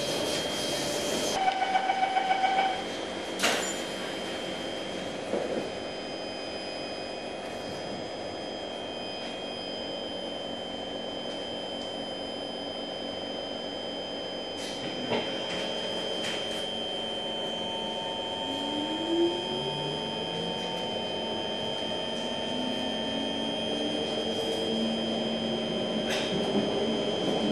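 Singapore MRT train carriage: a rapid run of door-closing warning beeps, then a knock as the sliding doors shut. The carriage then runs with a steady hum, and a rising motor whine comes in from about two-thirds of the way through as the train gets going.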